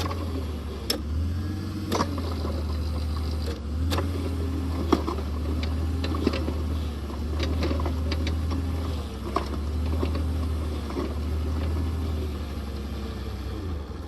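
Engine of a powered post-hole auger running steadily under load as the auger grinds into frozen, rocky ground. Sharp cracks and knocks come every second or two as it bites on a tree root.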